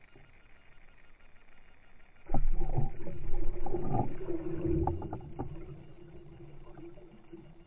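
Pike striking a dead-bait fish at the water's surface, heard underwater: a sudden splash about two seconds in, then a few seconds of churning water with sharp knocks, fading out.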